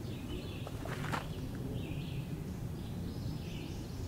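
Outdoor ambience of birds chirping in short, repeated phrases over a steady low background noise, with a couple of faint clicks about a second in.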